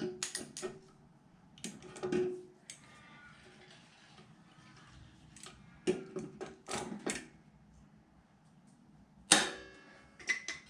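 Hand-work noises: scattered small clicks and knocks of parts and tools being handled, with one loud sharp knock about nine seconds in.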